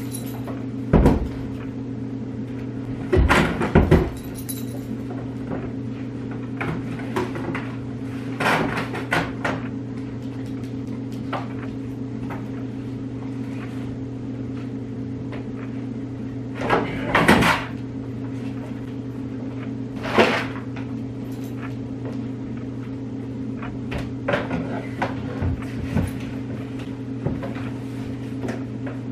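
Things being moved about in a closet: scattered knocks and clatters, loudest about a second in, at three to four seconds and around seventeen seconds, over a steady low hum.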